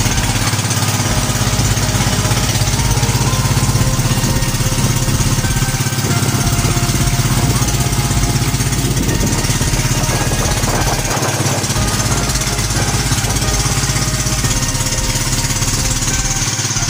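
Engine of a motorized outrigger boat (bangka) running steadily while the boat is under way, with a steady hiss of water and wind above it.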